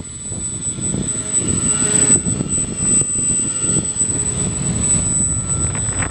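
Homemade box-wing RC plane's front-mounted motor and propeller running in flight. A steady high-pitched whine runs through a low rumbling noise.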